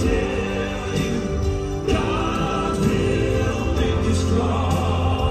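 Male gospel quartet singing live in close harmony, holding long chords over keyboard and bass guitar.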